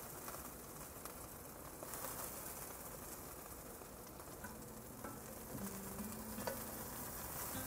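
Chicken thighs sizzling in a hot cast-iron skillet as a steady hiss, with a few light clicks of metal tongs against the pan in the second half.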